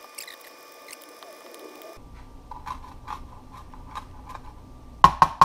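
Kitchen knife chopping fresh chili peppers on a plastic cutting board: a run of short knocks about two a second, with a few louder knocks near the end.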